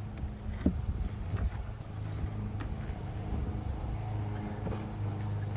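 Honeybees buzzing around an open hive: a steady low hum, with a few light clicks from handling the hive parts.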